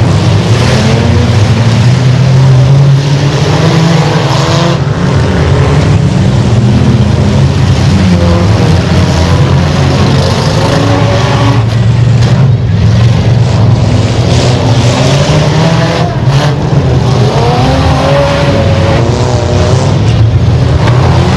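Engines of several enduro race cars running hard together around a dirt track. Their overlapping pitches rise and fall as they accelerate and pass.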